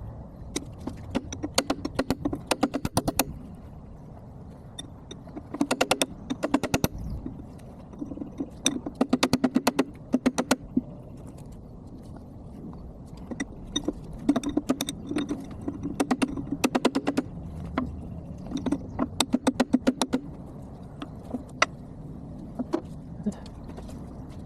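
Bursts of rapid, evenly spaced sharp metallic taps, several a second, in runs of one to two seconds with short pauses: hammer strikes on a chisel working a hydraulic cylinder part, sped up fourfold.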